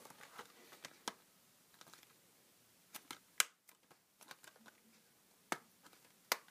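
Plastic Blu-ray case and paper inserts being handled, with scattered small clicks and light rustling; the sharpest click comes about three and a half seconds in.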